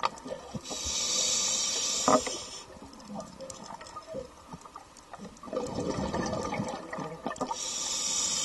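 Scuba diver breathing through a regulator underwater: a steady hiss for about two seconds, a burst of gurgling exhaled bubbles midway, then a second hiss near the end.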